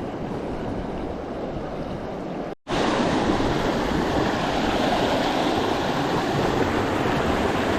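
Steady rush of a river's flowing water. It cuts out abruptly for a moment about two and a half seconds in, then comes back a little louder.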